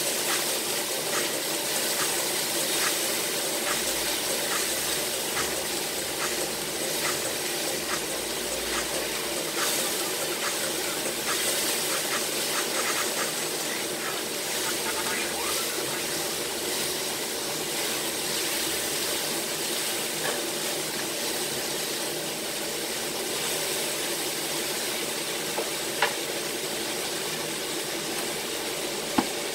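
Chicken adobo sizzling steadily in a hot pan, with frequent small crackles and the scrape of a long spatula stirring it; a couple of sharp knocks near the end.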